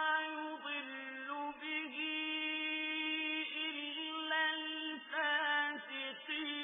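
A male reciter chanting the Quran in the melodic tajweed style, holding long, steady drawn-out notes with small turns in pitch.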